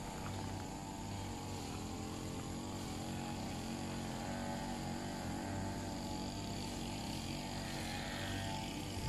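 Steady drone of an engine running at a constant speed, its pitch wavering slightly.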